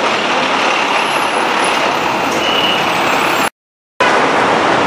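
Loud, dense street traffic noise: car, taxi and truck engines and tyres on a busy city street, with a brief high tone about two and a half seconds in. The sound drops out completely for about half a second near the end.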